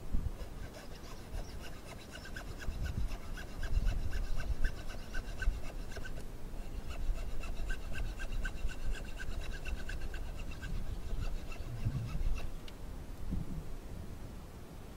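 Rhythmic scraping or rasping on wood, several quick even strokes a second with a squeaky edge, stopping near the end.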